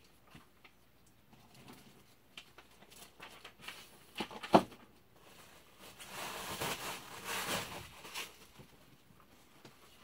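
A closed Damascus-steel linerlock folding knife with mammoth-tooth handle scales being turned in the hand: light clicks and rubbing, with one sharp click about four and a half seconds in. A rustling stretch follows for a couple of seconds.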